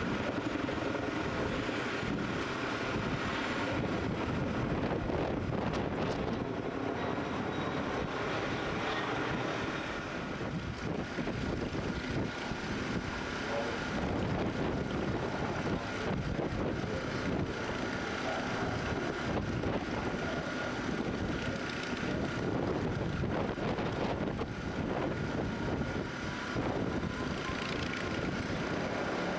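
Boeing B-17 Flying Fortress's four Wright Cyclone radial engines running steadily in flight.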